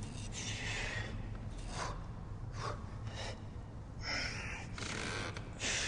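A man's short, strained breaths and exhalations, about six at irregular intervals, as he strains to stretch.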